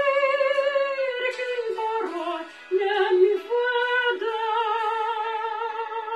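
Music from a Romanian Christian hymn: a slow melody of long held notes with vibrato over sustained accompaniment, with short breaks between phrases about two and four seconds in.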